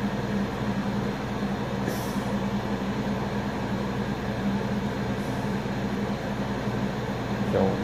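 A steady low machine hum with a constant drone, and a brief faint hiss about two seconds in.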